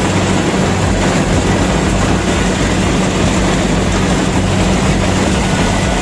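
Kubota rice combine harvester's diesel engine and threshing machinery running steadily with a constant low hum, heard from on board while the machine cuts standing rice.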